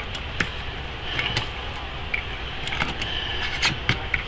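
Scattered light clicks and knocks of a metal canning-jar lid and a plastic lotion pump being handled and worked onto a glass mason jar, over a steady background hum.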